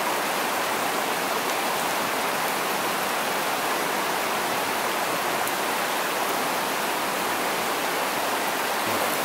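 Small rocky stream rushing steadily over a shallow riffle.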